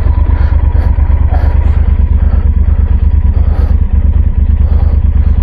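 Adventure motorcycle engine running with a steady, low, pulsing rumble.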